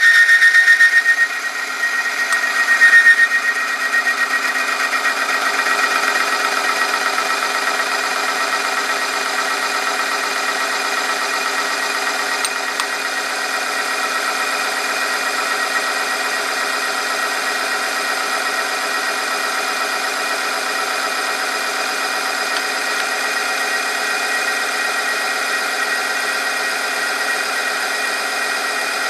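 Electric motor of an oil-film strength test machine running, spinning its roller against a loaded steel test sample in engine oil, giving a steady mechanical hum with a whine. A high squeal from the rubbing contact is loud at the start, fades about a second in, and flares briefly again near three seconds.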